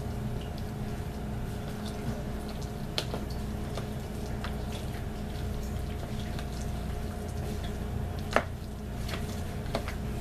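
Metal spoon mashing and stirring soft boiled potato with milk in a plastic tub: wet squishing, with scattered clicks of the spoon against the container, the loudest about eight seconds in. A steady low hum runs underneath.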